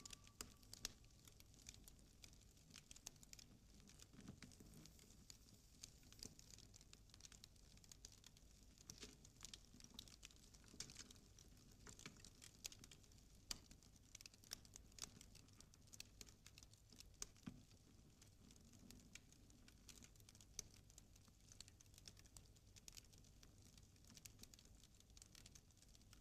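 Near silence with faint, irregular clicks and crackles scattered throughout.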